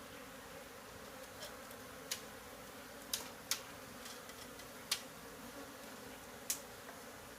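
A colony of defensive honey bees buzzing steadily in the air, with about five sharp clicks scattered through.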